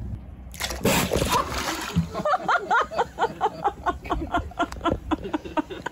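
A seal splashing at the surface as it lunges after fish, a sharp burst of splashing water about half a second in. Then a person laughing excitedly in quick, rapid bursts through the rest.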